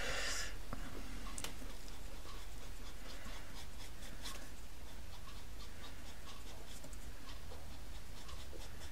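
Faint, light scratching strokes of a pastel tool's tip on pastel paper, over a steady low hum.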